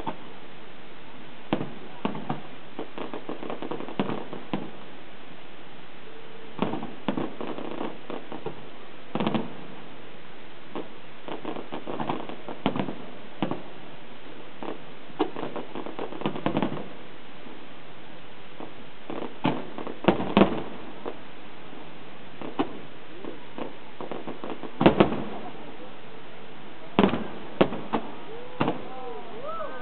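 Aerial fireworks shells bursting in an irregular run of bangs, some in quick clusters, the loudest in the second half.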